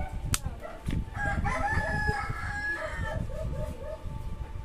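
A bird calling: one long call of about two seconds, then a run of short repeated notes.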